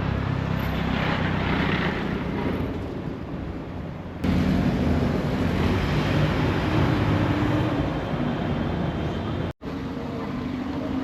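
Street traffic noise: vehicle engines running steadily, changing abruptly about four seconds in and cutting out briefly near nine and a half seconds.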